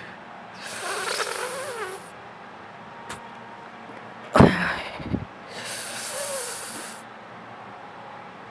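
A person breathing out hard twice during an exercise, each breath a rushing hiss lasting about a second and a half. Between the breaths, about four seconds in, comes a loud thump with a smaller knock after it.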